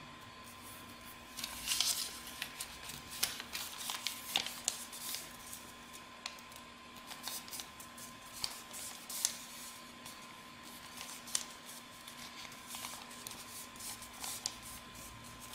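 A sheet of A4 paper rustling and crackling as it is handled and folded into an origami boat, in irregular sharp crinkles that begin about a second in and are thickest over the next few seconds.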